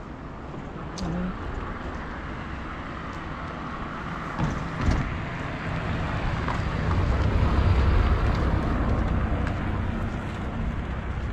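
Road traffic noise: vehicles passing on the road, with a low engine and tyre rumble that swells to its loudest about seven to nine seconds in as one passes close by. A brief knock sounds about five seconds in.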